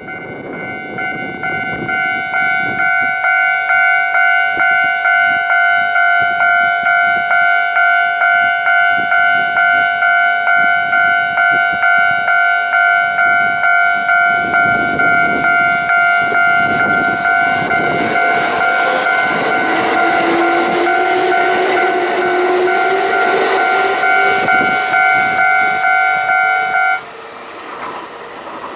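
Japanese railway level-crossing warning bell ringing, about two strikes a second, while a Kintetsu Nagoya Line train pulls away from the station and passes, its running noise building and its motor whine rising in pitch as it accelerates. The bell stops suddenly near the end.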